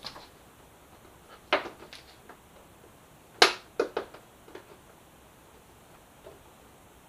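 A plastic motorcycle intake vent panel being pushed and clipped into place by hand, making a few sharp plastic clicks and knocks. They cluster between about one and a half and four and a half seconds in, with the loudest a little past three seconds.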